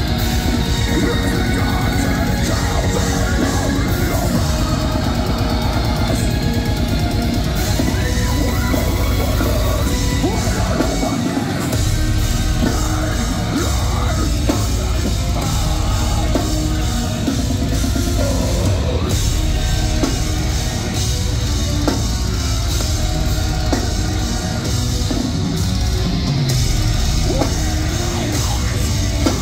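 A deathcore band playing live and loud: drum kit, distorted electric guitars and harsh screamed vocals. The low end drops out briefly about eleven seconds in.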